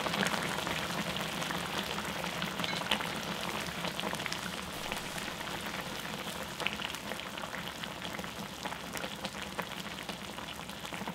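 Braised mackerel and radish bubbling in thick red chili sauce in a pot: a dense crackle of small pops and bubbles that slowly grows quieter.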